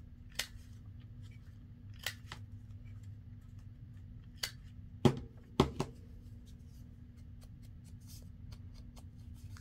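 Handheld corner rounder punch clicking as it cuts the corners off paper tags, three sharp clicks followed by two louder knocks about five seconds in.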